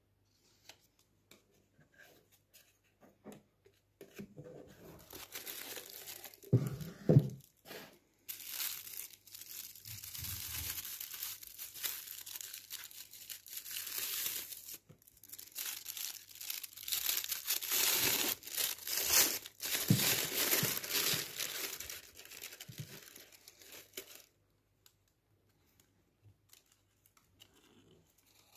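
Tissue paper and packaging crinkling and rustling as a watch roll is unwrapped by hand, in long stretches, with a couple of soft knocks of handling.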